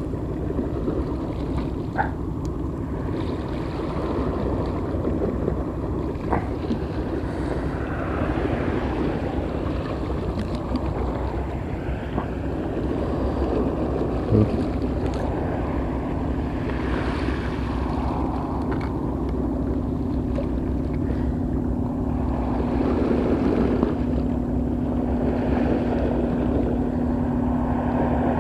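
Wind on the microphone and sea against a concrete seawall, with a steady engine drone that comes in about halfway and grows louder. A few sharp clicks come from fishing tackle being handled.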